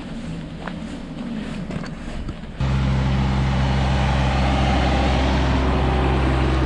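Outdoor street noise, then a loud, steady mechanical rushing sound with a deep, even hum that starts abruptly about two and a half seconds in and holds without change.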